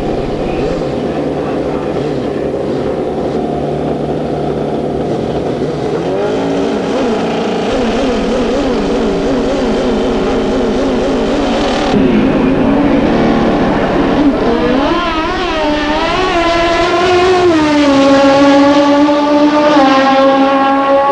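Drag-racing motorcycle engines running at the start line, then revved hard with a wavering pitch while staging. About halfway through they launch, and the engine notes climb and step in pitch through the gear changes as the bikes run down the strip.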